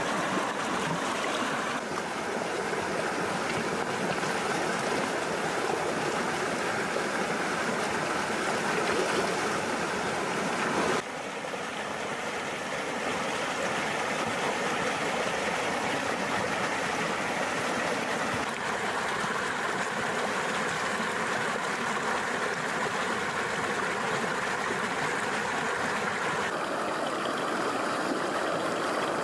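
Shallow rocky river rushing steadily close by, with splashing from someone wading through the current. The rush shifts abruptly in tone a few times.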